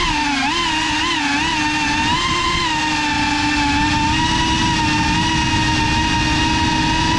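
GEPRC Cinelog35 ducted cinewhoop's motors and propellers whining, heard from the onboard camera as it flies low; the pitch wavers up and down with the throttle for the first few seconds, then holds steady.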